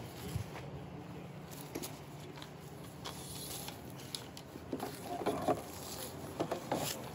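Scattered light knocks and clicks as an aluminium pole is handled and set into a wooden raft module, loudest in two short clusters in the second half, over a steady low hum.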